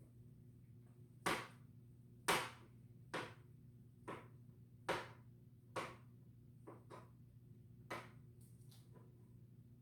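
Knife chopping chicken sausage on a cutting board: about ten sharp knocks at uneven spacing, roughly one a second, over a low steady hum.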